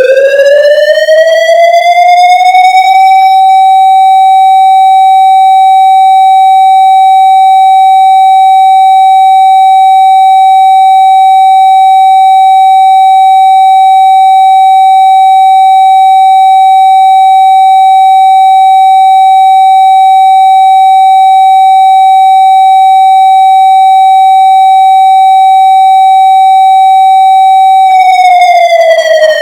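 Whelen WS-2000R electronic outdoor warning siren sounding a steady tone, very loud. Its pitch rises over about three seconds, holds one note for about 25 seconds, then begins to fall near the end as the tone winds down. This is one signal of an all-tone test.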